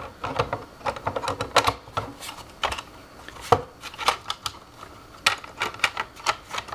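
Irregular sharp clicks and taps as hands close and handle the cover of an Icy Dock MB882HX-1SB 2.5-inch SSD adapter enclosure, the loudest click about three and a half seconds in.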